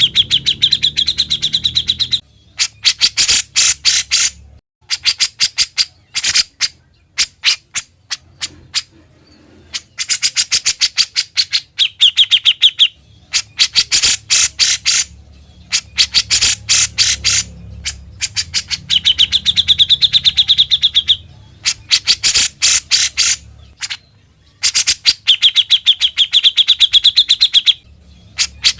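Songbird singing in long phrases of rapid, sharp chips and rattles, separated by short pauses. Several phrases carry a buzzy, even trill held at one high pitch.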